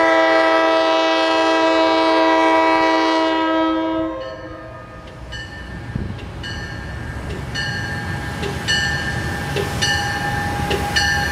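MARC commuter train's air horn sounding one long blast of several notes together for about four seconds as the train approaches. After it stops, a bell rings steadily, about twice a second, over the low rumble of the train rolling in.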